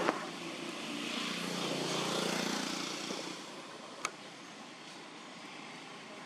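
A distant engine hums, swelling and then fading as it passes by, with a sharp click about four seconds in.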